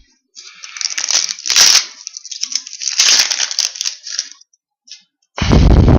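Foil wrapper of a hockey card pack crinkling and tearing as it is opened and the cards are handled, a rustling that runs about four seconds. Near the end comes a short, loud, deep thump.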